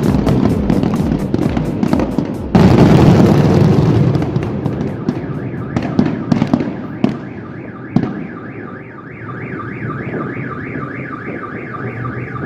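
Fireworks going off: a rapid string of sharp bangs, then a louder rushing blast about two and a half seconds in, then a few single bangs that die away. From about two-thirds of the way through, a car alarm sounds with a fast repeating warble.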